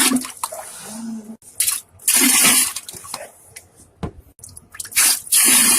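Wet, spluttering diarrhea fart sounds: a series of hissing, sputtering blasts with short gaps between them, the longest about half a second.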